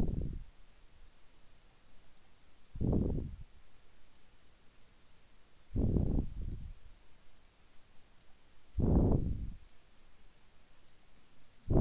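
Computer mouse clicking, a few faint, sharp clicks, while the mouse drags and resizes shapes. A louder, dull puff sounds about every three seconds, four times.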